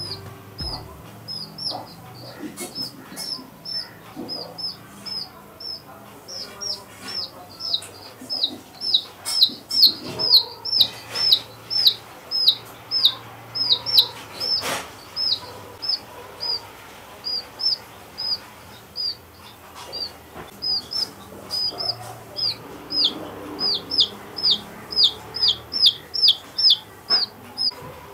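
Baby chick peeping over and over: short, high calls that each slide down in pitch, coming about two to four a second. The calls come fastest and loudest in two stretches, in the first half and again near the end.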